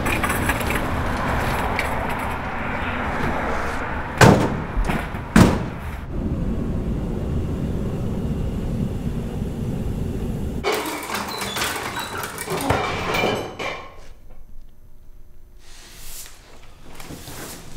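A steady loud rushing noise, broken by two sharp slams about a second apart, like a heavy door being shut. The rush cuts off suddenly after about ten seconds, and softer clattering follows.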